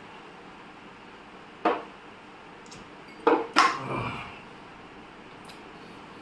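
Sharp knocks of things being set down on a tabletop: one about a second and a half in, then two close together about a second and a half later.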